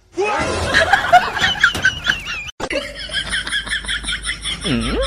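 People laughing across two short clips. The second is a quick, even run of high-pitched giggles, about four or five a second.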